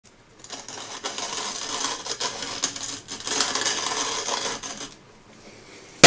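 Hand-cranked coffee grinder being turned: a dense crackling rattle of fine clicks in two stretches, stopping about five seconds in.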